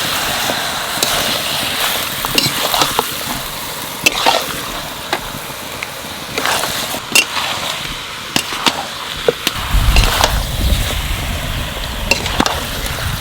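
Country-chicken pieces sizzling in spiced oil, stirred with a spatula that scrapes and knocks against the pan as the meat is cooked down in the masala. A low rumble joins in about ten seconds in.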